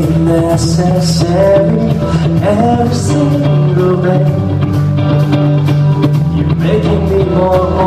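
A man singing live into a microphone over instrumental accompaniment.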